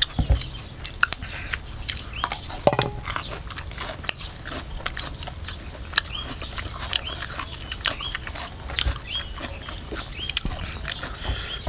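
Close-up chewing with wet mouth clicks and lip smacks, a person eating som wua, Isan fermented sour beef.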